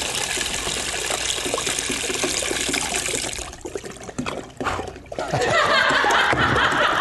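Water pouring out of two upturned glass jugs into plastic tubs: one is swirled into a vortex so it empties in a fast, unbroken stream, while the other, held straight up and down, chugs as air bubbles in. The loud flow drops away about three and a half seconds in as the swirled jug runs empty, and loud laughter follows from about five seconds in.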